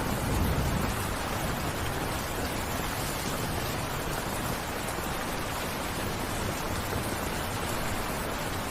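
Steady heavy rain falling, an even hiss with no single drops standing out, and a brief swell of low rumble near the start.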